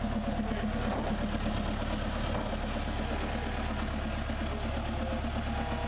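Small narrow-gauge diesel locomotive engine idling with a steady, regular low throb.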